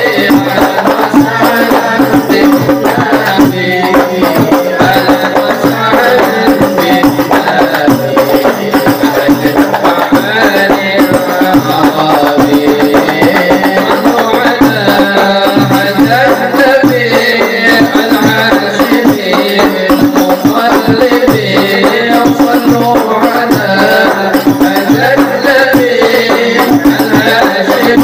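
Group of voices singing a sholawat chorus over steady, dense frame-drum playing by an Al Habsyi hadrah ensemble.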